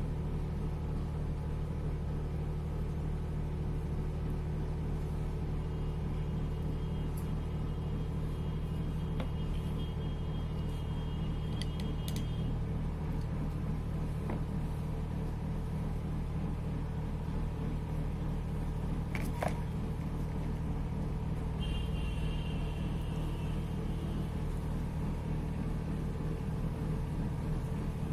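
A steady low machine hum, with a few faint clicks and taps.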